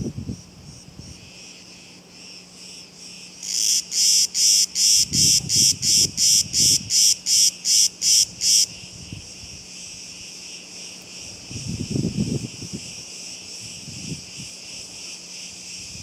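Cicadas singing in a steady high drone. A few seconds in, a nearby cicada breaks into a loud pulsing call of about three pulses a second, which stops after about five seconds.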